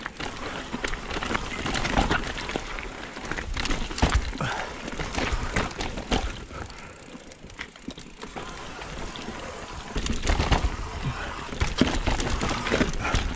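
Mountain bike rolling down a dirt trail: steady tyre noise on the dirt, broken by frequent clatters and knocks as the bike hits bumps. A low rumble grows heavier from about ten seconds in.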